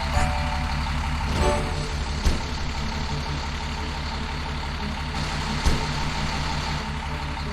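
Fire truck engine running steadily, with two short knocks about two and five and a half seconds in.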